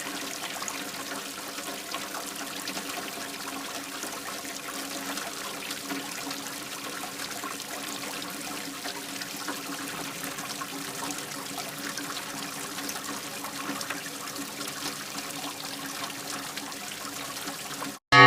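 Steady trickle of rainwater running into a drain during light rain. It cuts off abruptly just before the end.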